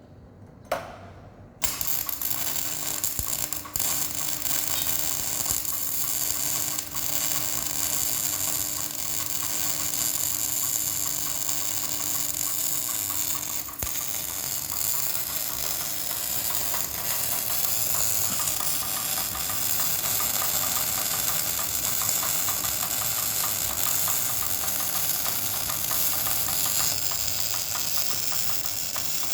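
Electric arc welding: after a short click, the arc strikes suddenly about a second and a half in and then burns with a steady, dense hiss as the weld is run.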